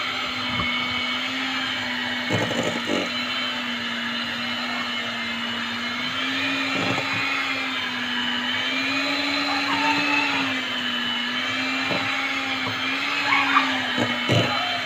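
Electric hand mixer running steadily, its beaters whisking thick cake batter in a stainless steel bowl, the motor pitch wavering slightly as it works through the mix. The beaters knock against the steel bowl now and then, most plainly about two seconds in and near the end.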